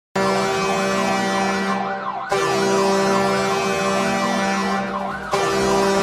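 Shawinigan Cataractes hockey goal horn: a loud arena horn holding a steady low chord, layered with a fast-wavering police siren. It is blasted three times, each blast restarting about two and five seconds in.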